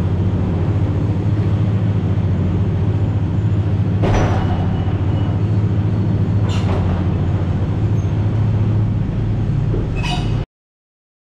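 Steady low drone of a tractor-trailer on the move, heard inside the cab: engine and road noise, with three brief swishing noises along the way. It cuts off suddenly near the end.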